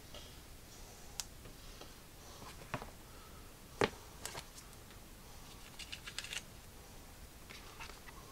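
Hands handling the cardboard packaging of an iPad box: light scattered taps, clicks and paper-board scrapes, the sharpest tap just under four seconds in and a short run of light rustles about six seconds in.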